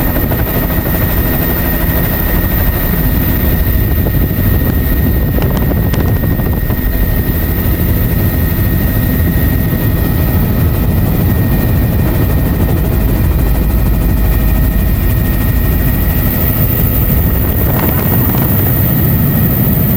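Helicopter engine and rotor noise heard from inside the cabin, loud and steady, with a constant high whine over the rumble, during a low take-off run over grass and climb-out.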